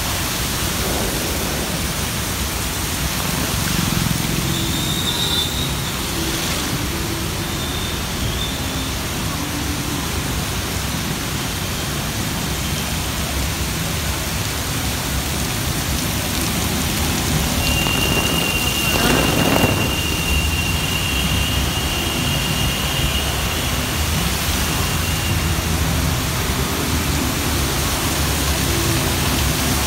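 Heavy rain pouring onto a flooded street: a steady hiss, with traffic driving through the water. One vehicle passes close about two-thirds of the way in, swelling and fading.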